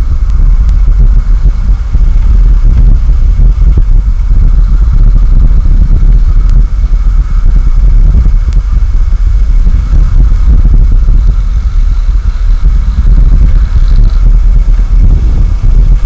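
Loud, rough low rumble of wind buffeting the microphone.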